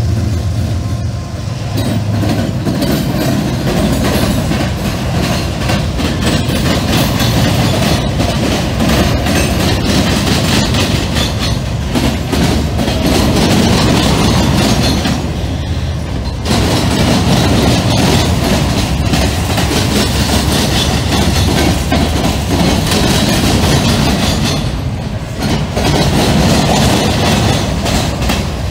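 Norfolk Southern diesel freight train passing close by. The locomotive engines drone at first, then the hopper cars roll past with wheels clicking over the rail joints. The noise dips briefly twice.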